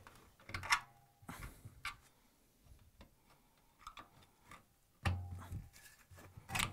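Scattered light metal clicks and knocks as a washer's spider arm is pried and worked loose from the back of the drum, with a louder knock and scrape about five seconds in.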